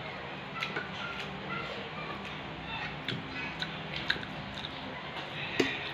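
A person chewing and eating a rice meal with mouth sounds, and scattered light clicks and clinks of a metal spoon against the plate and bowl. The sharpest clink comes near the end.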